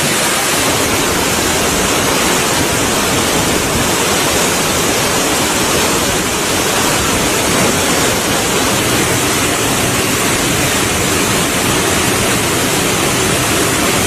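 A cascading waterfall and the rapids of its rocky stream making a steady, loud rush of falling and tumbling water.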